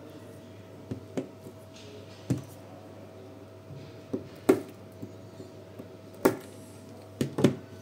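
Sharp clicks and knocks from hands-on work on a NiCd drill battery pack and its cells, about eight irregular strokes with the loudest two in the middle, over a faint steady hum.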